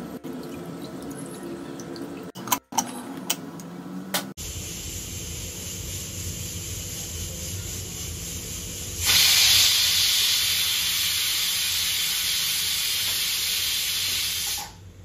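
Kitchen tap running water into a sink: a steady rushing hiss that comes on suddenly about nine seconds in and stops shortly before the end. A quieter steady rush comes before it, and a few light clicks come at the start.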